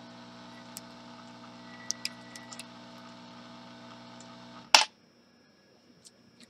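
A steady electrical hum from running bench equipment, with a few light clicks of tools on the circuit board; about three-quarters of the way through, a loud click and the hum stops at once, as when a machine is switched off.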